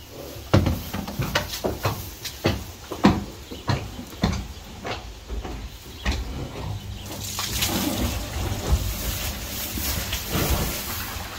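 A mule rustling and munching straw bedding, with irregular crunches and crackles. About seven seconds in, a steady rush of running water starts, water being put in for her.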